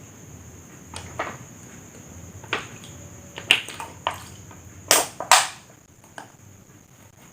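A series of sharp clicks and knocks at uneven intervals, about eight in all, with the loudest pair about five seconds in.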